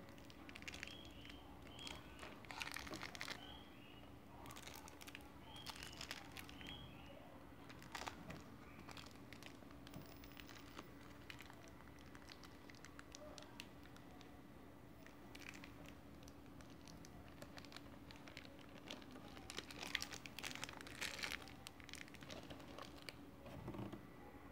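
Clear plastic packaging crinkling in irregular bursts, with light clicks, as a pair of plastic cycling sunglasses is handled and set down on its bag.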